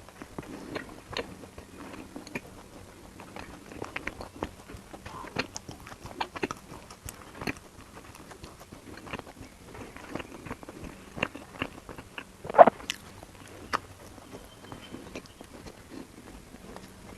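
Someone biting and chewing food close to the microphone, with scattered small crunches and clicks and one louder knock about twelve and a half seconds in.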